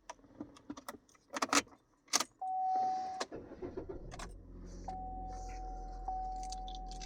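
Car key jangling and clicking as it goes into the ignition, then a Chevy Cruze's engine starts about two and a half seconds in and settles into a steady idle. A steady high tone sounds over the idle.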